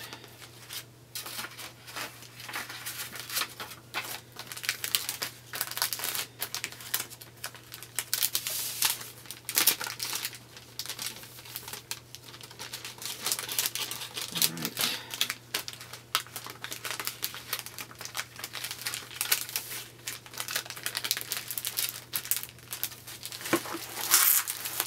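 Clear plastic packaging crinkling and paper pads rustling as craft supplies are handled: irregular short rustles, louder about ten seconds in and again near the end.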